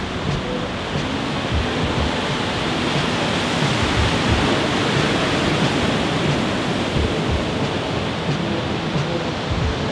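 Ocean surf breaking against the foot of sea cliffs: a steady rush of waves that swells in the middle and eases off again.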